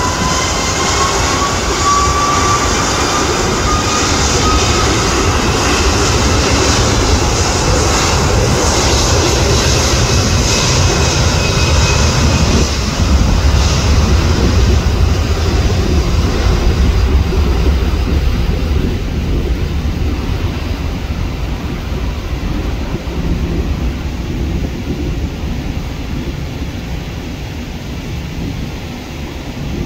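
Airbus A330 jet airliner's twin turbofan engines at high thrust on the takeoff roll: a whine rising in pitch over the first few seconds under a heavy rumble that swells to its loudest about halfway, then slowly fades as the jet moves away down the runway.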